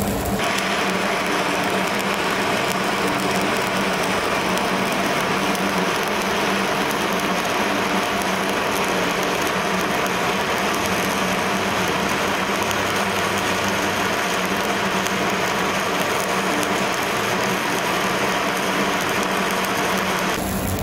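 Stick-welding (shielded metal arc) arc burning steadily, with a continuous dense crackling and sizzling as the electrode is run along the joint.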